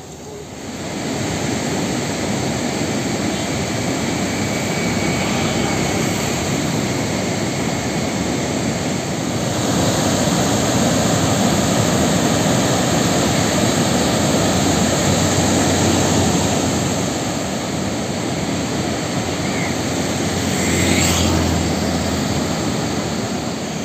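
Water pouring through the open spillway gates of Mettur dam and crashing down over the weir and rocks: a loud, steady rushing that grows a little louder about ten seconds in.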